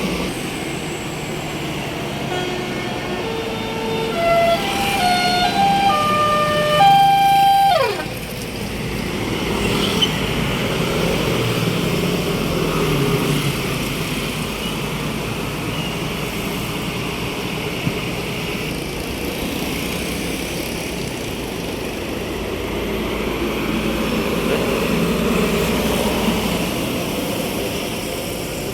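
A bus's telolet basuri musical horn plays a quick tune of separate stepped notes for about five seconds and ends in a sharp falling glide. After that comes the steady rumble of passing buses and road traffic, swelling and fading.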